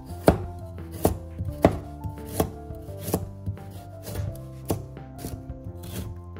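Kitchen knife slicing a carrot into strips on a wooden cutting board: about a dozen sharp knocks of the blade meeting the board, roughly three every two seconds. Soft background music with sustained notes plays underneath.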